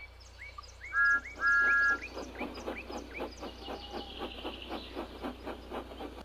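Birds chirping, with two loud steady two-note whistle blasts about a second in, the first short and the second longer. Under them run faint even clicks about four times a second and a steady low hum.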